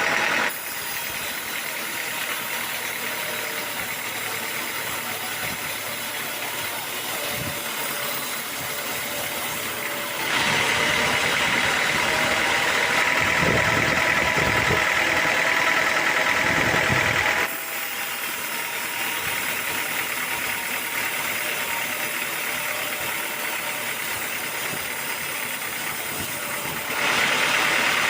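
Sawmill machinery running steadily, a continuous mechanical noise. It jumps abruptly louder about ten seconds in, drops back a few seconds later, and rises again near the end, with a few low thumps in the louder stretch.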